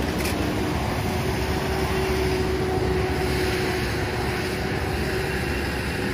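Steady low rumble of outdoor city noise, without a break.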